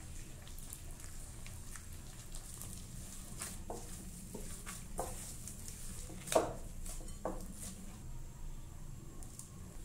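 Glutinous rice flour dough being squeezed and kneaded by a gloved hand in a glass bowl: soft squishing and patting with scattered light taps, the sharpest about six and a half seconds in.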